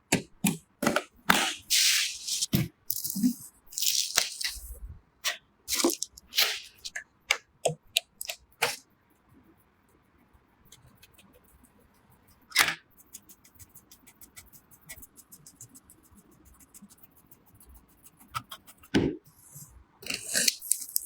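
Sharp clicks, knocks and rattles of PC components being handled and fitted, many in the first half. After that comes a quieter stretch with a single loud click and a run of quick light ticks.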